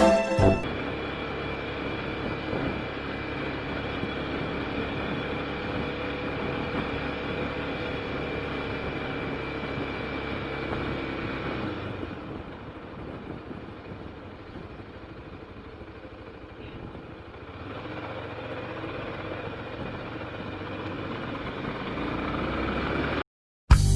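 Road noise of a ride in traffic heard from a helmet-mounted camera: a steady vehicle running sound with wind rush and a faint steady whine. It grows quieter for several seconds midway, builds again, then cuts off suddenly near the end.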